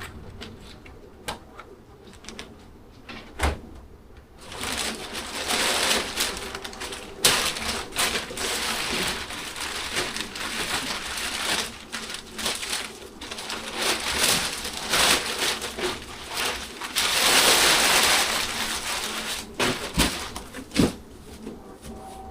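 Packaging being unwrapped by hand: a few sharp knocks, then from about four seconds in a long spell of plastic crinkling and rustling.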